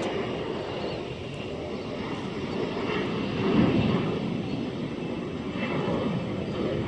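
Jet engines of a regional jet climbing out after takeoff: a steady rush of engine noise.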